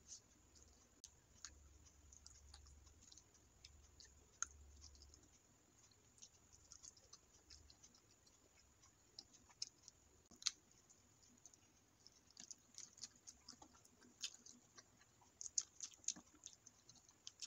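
Faint eating sounds of a meal of biryani and curry eaten by hand: irregular wet clicks and smacks of chewing and of fingers working the rice. The clicks come thicker over the last few seconds.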